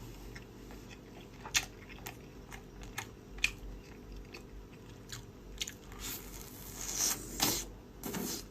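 A person eating close to the microphone: crunchy bites and chewing, with sharp clicks scattered through and a louder spell of crunching near the end.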